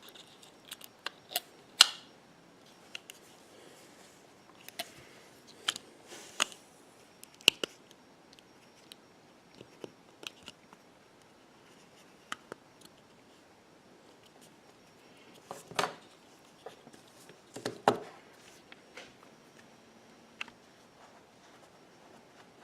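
Scattered small clicks and taps from tools and parts being handled while the iPhone 6's motherboard and connectors are refitted, with a few louder knocks near the start and about two-thirds of the way through.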